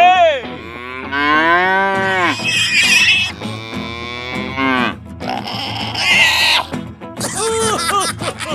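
Cattle mooing: several long, drawn-out calls one after another.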